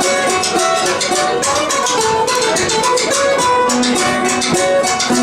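An Irish folk band playing live: a fast, even strummed and struck rhythm with a melody of short notes above it. A long held low note comes in near the end.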